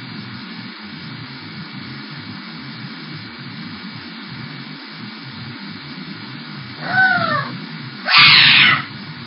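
An unhappy cat meows once, the call falling in pitch, then about a second later gives a louder, harsh, noisy cry lasting under a second. A steady hiss from the security camera's microphone runs underneath.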